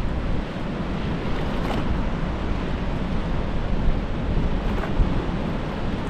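Wind buffeting the microphone over the steady wash of sea surf breaking on the shore.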